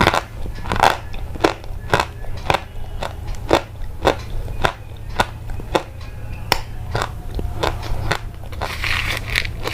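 Sharp, evenly spaced crunches, about two a second, over a steady low hum.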